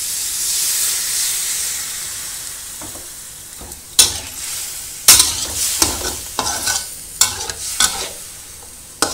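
Sizzling in a hot wok just after water is poured in, the hiss swelling and then slowly dying away. From about four seconds in, a metal spatula scrapes and knocks against the wok as the chicken in its sauce is stirred.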